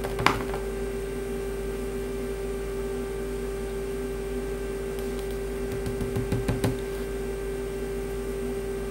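A steady low hum throughout. There is a single light tap just after the start and a short run of light taps on the wooden worktable about six seconds in, as fingertips work on a polymer-clay earring.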